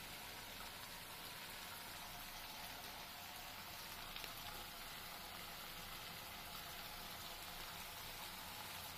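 Faint, steady sizzling of onion paste and spices frying in oil in a pan.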